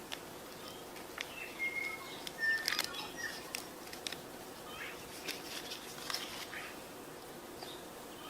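Campfire crackling, with irregular small pops and snaps, and a few short bird chirps about two seconds in.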